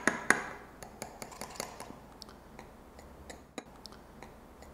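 Knife cutting through a crisp baked parmesan crust in a glass baking dish: a few sharp clicks at the start, then faint ticking, with one more click about three and a half seconds in.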